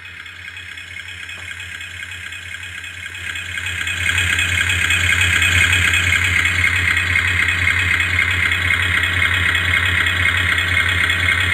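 Recorded boat-engine running sound from a Beier RC sound module, played through a 60 W subwoofer speaker. It swells over the first four seconds as the volume is turned up, then runs on steady and loud.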